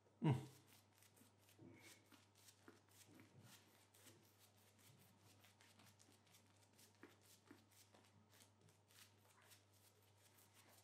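Shaving brush working wet shaving-cream lather over the face, making faint quick bristly strokes several times a second. A short thump sounds right at the start.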